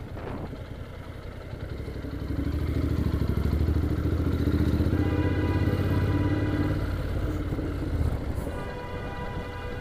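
Motorcycle engine running as the bike rides through slow city traffic, getting louder about two seconds in. A car horn sounds for a few seconds about halfway through, and again near the end.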